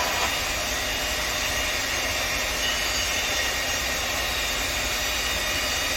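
Steady mechanical hum and whooshing hiss of workshop machinery running, with a few faint high steady whines, at an unchanging level.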